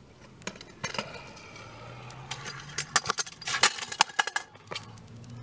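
A skateboard clattering on concrete in a fall: a few light knocks, then a burst of loud sharp knocks and metallic clinks in the middle, over a low steady hum.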